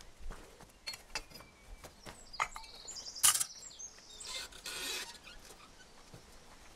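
Scattered light clinks and knocks of a foundry crucible and mold while molten aluminum is poured, with one louder knock about three seconds in. Birds chirp faintly in the background.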